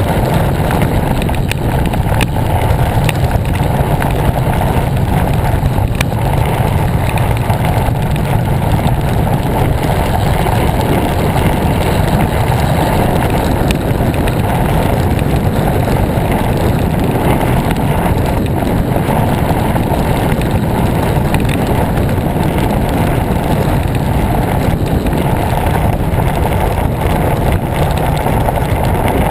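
Wind buffeting the microphone of a handlebar camera on a moving road bike, a steady low rumble mixed with tyre and road noise, with a few faint clicks.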